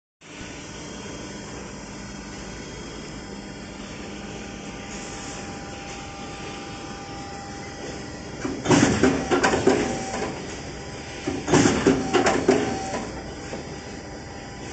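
Plywood core veneer patching machine running with a steady hum, broken by two loud clattering bursts of rapid clicks, one a little past halfway and another about three seconds later.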